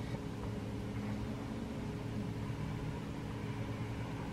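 A vehicle engine idling: a steady low hum with no change in pitch.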